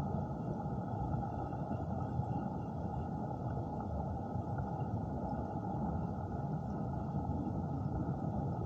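Steady, muffled rush of flowing stream water heard underwater, a low even noise with nothing high in it.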